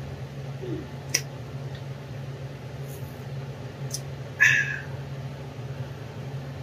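Steady low machine hum, with a couple of faint clicks and one brief high squeaky sound about four and a half seconds in.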